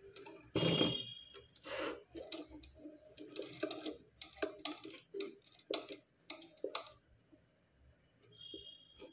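Irregular clicks and knocks from a homemade wooden model borewell rig as its hand crank winds the string and hoists the small motor carriage up the frame. A brief high squeak comes near the start and another near the end.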